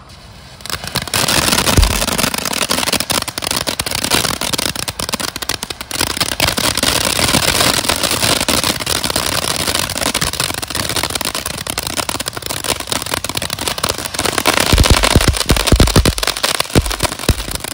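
TNT 'Fish On' four-tube firework fountain erupting about a second in and spraying sparks with a loud, steady hiss, crackles running through it. Near the end the crackling thickens into dense pops and low thumps.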